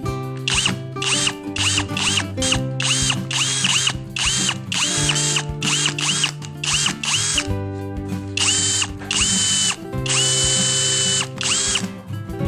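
Cordless drill with a countersink bit boring into a wooden block in short trigger pulses, its motor whine rising and falling with each pulse, about two a second at first, then a few longer runs, the longest about a second, near the end. Background music underneath.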